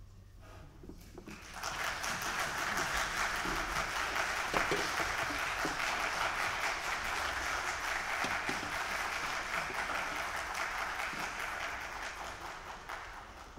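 Audience applauding, breaking out suddenly about a second and a half in and dying away near the end.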